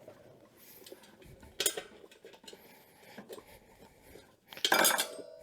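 Handling noises from working on a motorcycle wheel: a light metallic knock about a second and a half in, then a louder clatter with a short metallic ring near the end.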